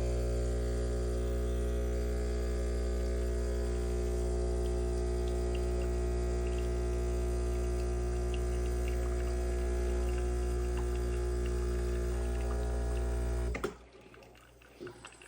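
Breville Barista espresso machine's pump humming steadily as it pulls a double shot. It cuts off suddenly near the end when the shot finishes.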